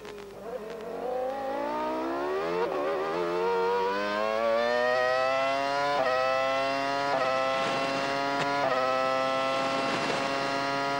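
Formula One McLaren's Mercedes 3.0-litre V10 at full throttle, accelerating hard out of a slow corner. Its high pitch climbs steadily, then holds near the top of the revs, broken by four quick upshifts.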